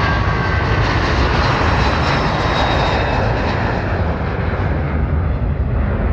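Jet airliner's engines passing by. The rushing engine noise is loudest a couple of seconds in, then fades as its higher part drops away, over a steady low rumble.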